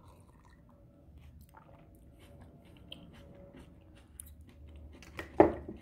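A person chewing a mouthful of raw zucchini-noodle salad: a run of faint, small clicks and crunches, with one much louder short sound near the end.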